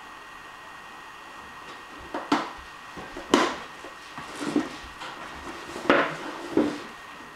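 Cardboard box scuffing and knocking across a wooden floor as an animal hidden underneath pushes it along: several short scrapes and bumps, starting about two seconds in.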